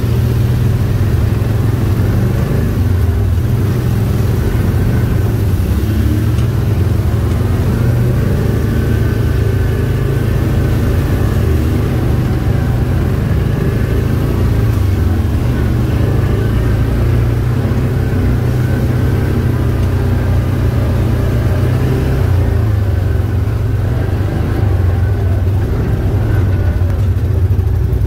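Side-by-side UTV's engine running steadily as it drives along a dirt trail, heard from the seat: a loud, constant low drone with rumbling noise over it.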